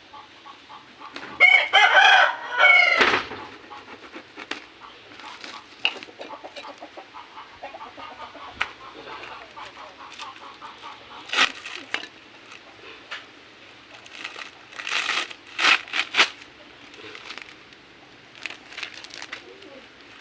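A rooster crows once about a second in, a loud call of about two seconds that falls away at the end. After it come quieter scattered sounds, with a few short louder bursts in the second half.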